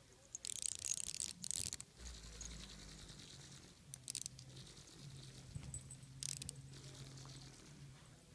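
Vibrating Angry Birds plush toy buzzing with a steady low hum from about two seconds in, with a few bursts of scratchy rustling as it is played with.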